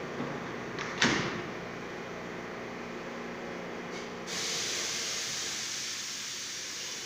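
R143 subway train standing in the station with its doors open: a steady hum from the stopped train, a sharp clack about a second in, and a steady high hiss of air that starts suddenly about four seconds in.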